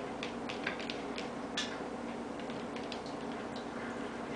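Light, irregular clicks and taps from a cat nosing and pawing at a plastic bin of dry cat food, closest together in the first couple of seconds and sparser after. A steady low hum runs underneath.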